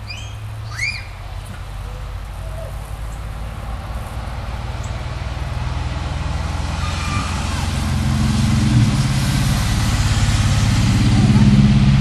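A motor vehicle's engine running with a low steady hum and road noise, growing steadily louder through the stretch. A few short high squeals sound in the first second.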